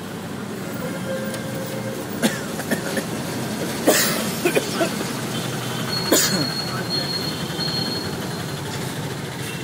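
A punched sheet of continuous computer paper being handled: a few sharp crackles and knocks, the loudest about four seconds in and another about six seconds in, over a steady background hum.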